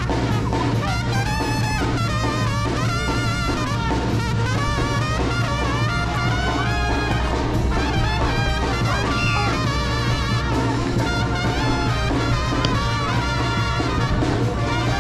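Brass band music playing steadily, with melody lines over a strong, continuous bass.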